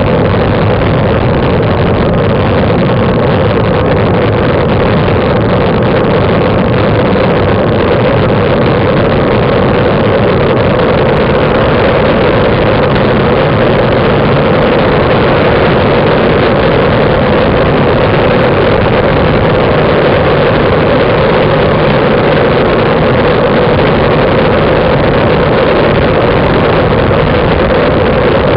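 Steady, loud wind and road rush on the microphone of a camera mounted on a moving road bike. The noise is unbroken, with no change in level.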